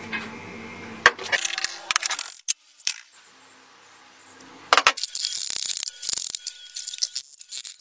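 Rusted iron machine parts clinking and scraping as they are handled and taken apart: a cluster of sharp metallic clicks about a second in, a few single knocks, and a denser run of ticks and scraping from about five seconds in.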